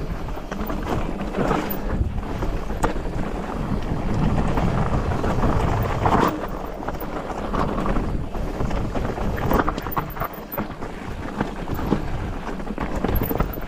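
Wind buffeting the microphone over the rattle and crunch of a Polygon Siskiu T8 full-suspension mountain bike's tyres running fast down a rocky, loose dirt trail, with frequent small knocks as it rolls over rocks.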